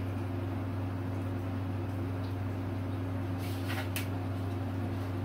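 A steady low hum with two brief scraping rustles about three and a half to four seconds in, as a thin styrene plastic strip is handled and flexed.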